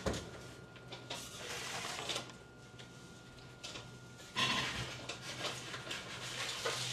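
Faint kitchen handling sounds as a pizza is put into the oven: a few light knocks, then a steady hiss that starts suddenly about four and a half seconds in and holds.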